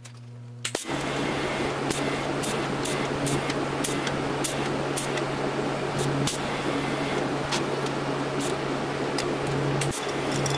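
TIG welding arc running steadily: a low buzz with hiss and scattered sharp crackles, starting suddenly about a second in. It is laying a small build-up of weld on the face of a steering-coupler lug to take up play in the fit.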